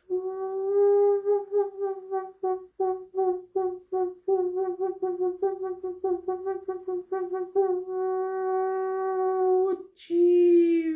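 A woman's voice chanting on one steady pitch in quick repeated syllables, then holding a long note and finally letting a note slide downward: vocal toning in channelled 'light language'.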